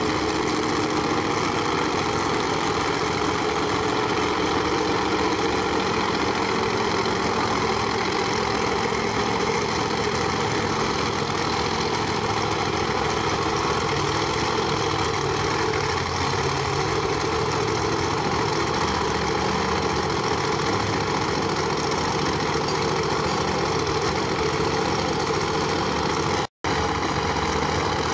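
Turbocharged no-prep drag-racing Cadillac's engine idling steadily, with a split-second break in the sound near the end.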